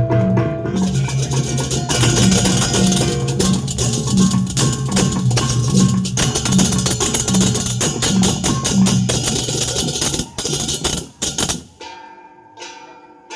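Balinese balaganjur gamelan playing: clashing cymbals over a steady alternating pulse of low, pitched gong strokes. Near the end a few sharp accented strikes, then the ensemble breaks off and only ringing metal tones hang in the air.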